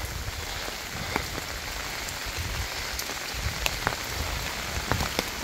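Steady rain falling, with a few scattered sharp ticks of drops landing close by.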